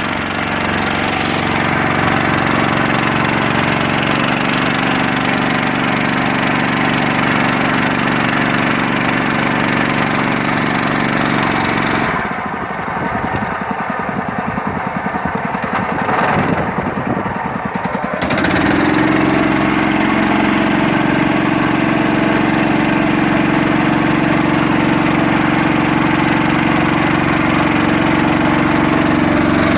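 A boat's engine running steadily, with a hiss of water and air over it. About twelve seconds in, the sound thins and drops for some six seconds, then the steady engine note comes back.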